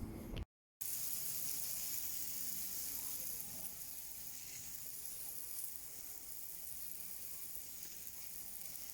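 Steady hiss of water running and spraying over a Mercedes W124's body during a rain-leak test. It starts about a second in and stays even throughout.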